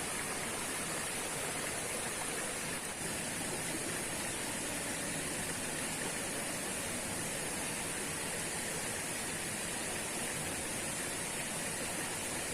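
Steady rush of water falling and flowing from a waterfall.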